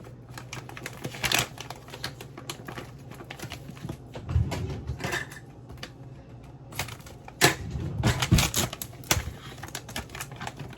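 Irregular clicks, taps and scrapes of a utensil and measuring cup against a bowl and container as brown sugar is scooped out, with a loud cluster of knocks about three quarters of the way through.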